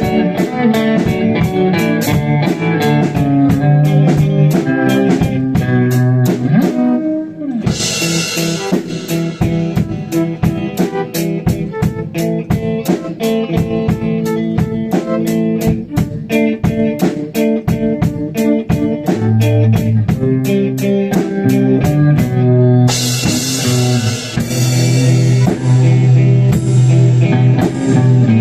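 Live band jam: electric guitar, bass and drum kit playing a driving instrumental with a steady fast beat. It drops out briefly about seven seconds in, then comes back with crashing cymbals, which swell again near the end.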